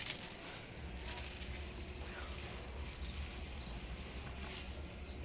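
Clear plastic wrapping on a new cricket bat rustling and crinkling as it is handled, in a few short bursts, the loudest at the start. A steady low rumble runs underneath from about a second in.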